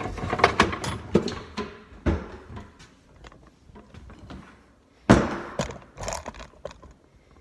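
Knocks and clunks of an old Evergrind E202 garbage disposal being handled as it comes free of its sink mounting, with one loud thunk about five seconds in.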